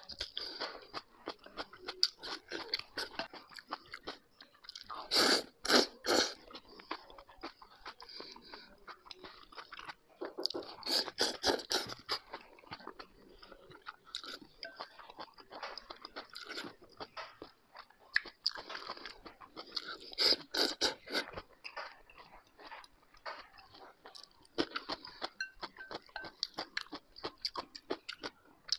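A man eating noodles close to the microphone: steady chewing and mouth noises, with a few louder bouts of slurping as he sucks in mouthfuls of noodles, about five, eleven and twenty seconds in and again at the end.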